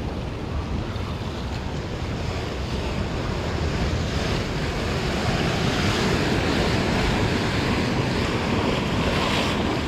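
Ocean surf washing onto the shore, with wind rushing over the microphone; the wash swells louder about halfway through.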